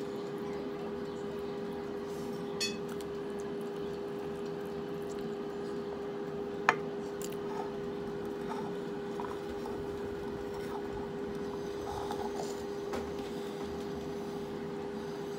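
A glass dinner plate clinks once sharply about seven seconds in and more lightly near the three-second mark, with faint handling sounds as food is eaten by hand. A steady hum runs underneath.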